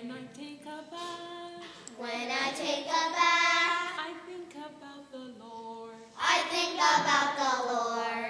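A group of children singing a song together in held, sung phrases, louder a few seconds in and again near the end.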